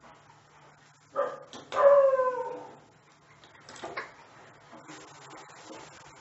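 A dog barks twice about a second in: a short bark, then a louder, longer yelping bark that falls slightly in pitch. Near the end a wooden spatula starts stirring the frying bitter gourd slices in the pan with a soft scraping.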